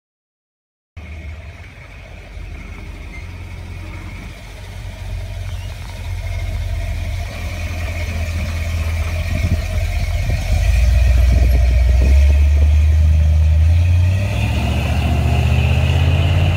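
Custom 1979 Chevrolet C10's 350 small-block V8, breathing through headers and Flowmaster Street mufflers, running as the truck pulls away. It starts suddenly about a second in and grows louder, deepening about ten seconds in.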